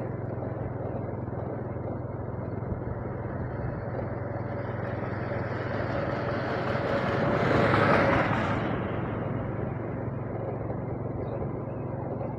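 Steady road and wind noise from travelling along a road by vehicle, with another vehicle passing: it swells about six seconds in, is loudest around eight seconds, and fades a second later.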